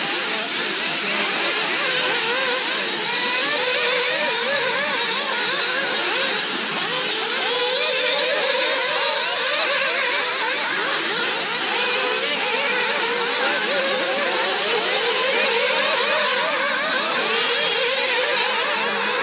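Several radio-controlled nitro buggies racing together, their small glow-fuel engines revving up and down in a constant, overlapping high whine.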